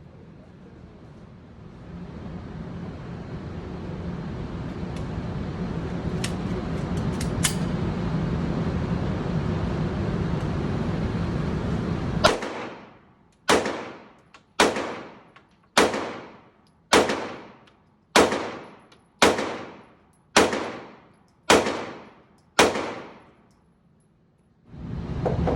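A steady noise during the first half, then ten gunshots fired at an even pace of about one a second, each one ringing out briefly.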